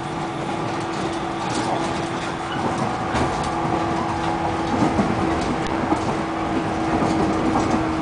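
Ride noise inside a JR 115-series electric train running at speed: a steady rumble and hum, with clicks as the wheels pass over rail joints.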